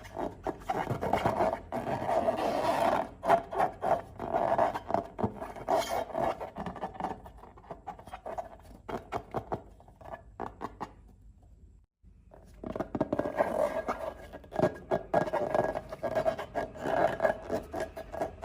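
Slime being squeezed and worked by hand, giving dense crackling, sticky clicks and scraping. It stops briefly about eleven seconds in, then starts again.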